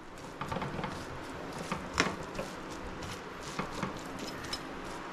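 Light scraping and small taps of a perforated metal spoon turning cooked biriyani rice in a metal pot, over a faint steady hiss.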